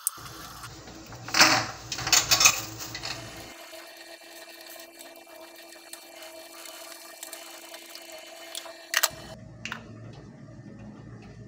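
Kitchen cooking sounds: a few loud knocks and clatters of utensils on cookware, then a steady low hum, with one more sharp knock near the end.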